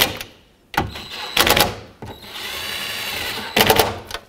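Cordless impact driver running the mirror's mounting nuts down onto their studs, two runs. Each is a steady motor whine that ends in a short burst of rapid hammering as the nut seats, about one and a half seconds in and again near the end.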